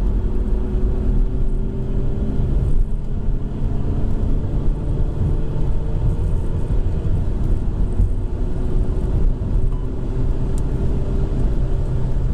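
BMW 120d's four-cylinder turbodiesel accelerating at high speed, heard from inside the cabin over heavy, steady road and wind noise.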